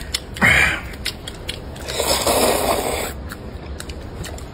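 People eating at a table: chewing and mouth noises, with a short noisy burst about half a second in and a few small clicks of chopsticks against a bowl.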